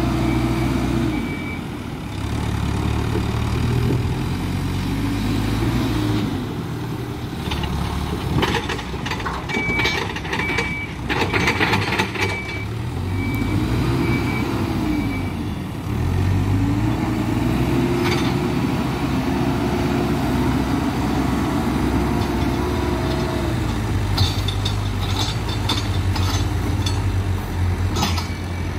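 Hidromek 102B Alpha A5 backhoe loader's diesel engine revving up and settling back again and again as it works, while a reversing alarm beeps in stretches. Knocks and clatter come in between, heaviest around a third of the way in.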